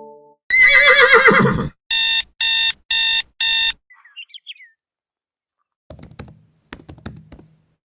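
A run of sound effects, one after another. First a horse whinnies once, a wavering call lasting about a second. Then an alarm clock beeps four times in quick succession, a few bird chirps follow, and near the end come scattered clicks of typing on a laptop keyboard.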